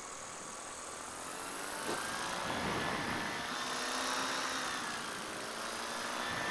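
Paramotor engine and propeller running in flight, the note bending slightly up and down as the throttle changes and growing louder about two seconds in.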